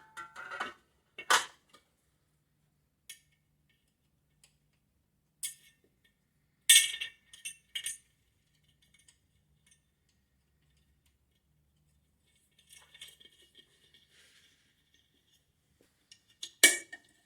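A few separate sharp metallic clinks and knocks of small metal parts and tools being handled while a carburettor stud kit, spacer and carb are fitted, with a faint rattle between them.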